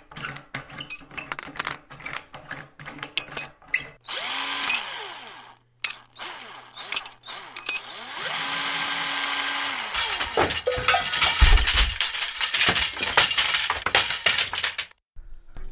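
Repair work with tools: a string of clicks and knocks, a power drill whirring twice, then a stretch of busy rattling and clanking.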